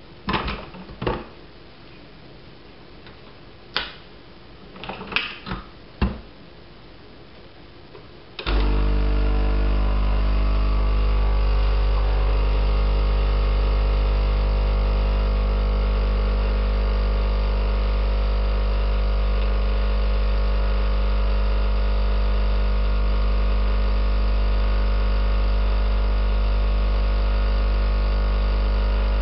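Several clicks and knocks as the capsule machine's lid is handled, then about eight seconds in the ALDI Expressi capsule coffee machine's pump starts and runs with a loud, steady hum while brewing coffee.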